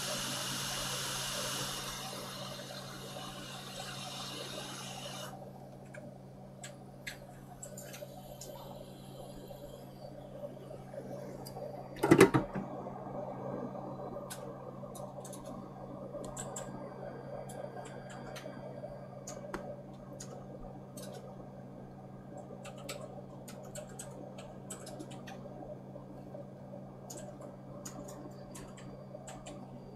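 Hands-on bench work on a handheld radio. A hiss stops abruptly about five seconds in. After it come light clicks and taps of small tools and parts, with one loud knock about twelve seconds in, over a steady electrical hum.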